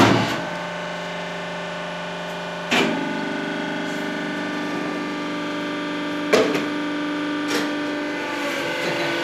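Hydraulic brick-making press running: a steady hum from its hydraulic pump, changing pitch with a knock about three seconds in. Further sharp metallic knocks come about six and a half and seven and a half seconds in as the ram and mould move down.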